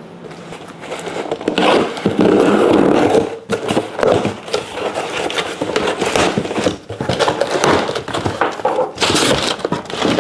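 Cardboard shipping box being handled and opened: flaps scraping and rustling, with the boxed items inside shifting against the cardboard. The densest stretch of scraping comes a couple of seconds in.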